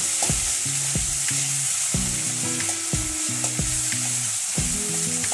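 Tomato and green chillies sizzling as they fry in mustard oil in a metal kadai. A metal spatula stirs them, scraping and knocking against the pan every fraction of a second.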